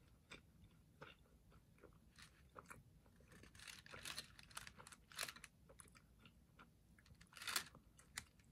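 Faint wet mouth clicks and smacks of a person chewing jelly beans with the mouth closed, with a few slightly louder smacks around the middle and near the end.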